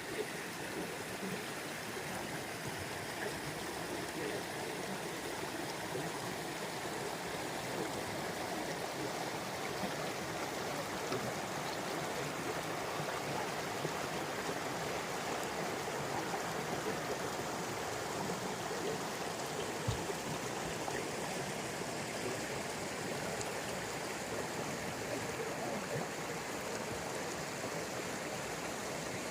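A flowing stream, making a steady, even rush of water, with one brief click about two-thirds of the way through.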